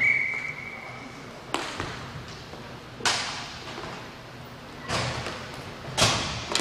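A referee's whistle blown once for about a second, then four sharp knocks echoing through the rink hall, the last one the loudest, from the hockey play on the inline rink.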